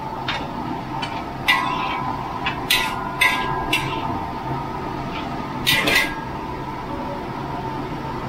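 Metal spatula scraping and clanking against a large metal wok as minced pork is stir-fried: irregular sharp strikes, bunched in the first four seconds and again around six seconds, over a steady background hum.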